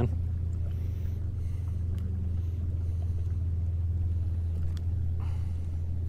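Steady low hum of a boat's outboard motor running.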